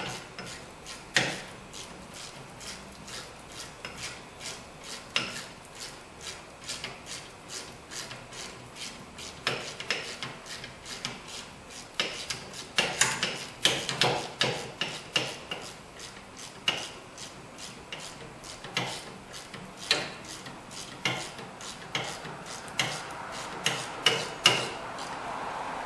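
Hand ratchet clicking in irregular runs as a brake caliper mounting bracket bolt is tightened, with metal tool clinks.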